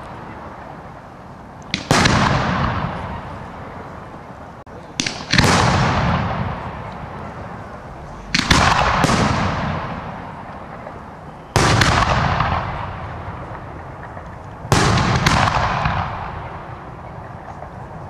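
Firework shells bursting in a display, a loud bang about every three seconds, some with a smaller crack just before. Each bang trails off in a long rolling echo.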